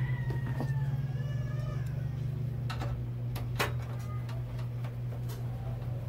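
A cat's long meow, falling in pitch over about two seconds, over a steady low hum, followed by a few sharp clicks.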